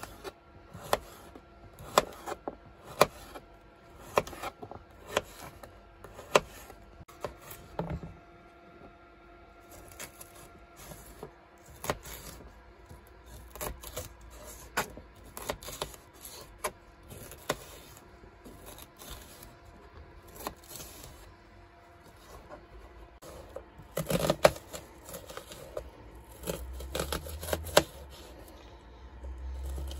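Kitchen knife chopping courgette, red pepper and red onion on a plastic chopping board: sharp knocks of the blade striking the board, about one a second at first, with a quicker, louder run of chops near the end.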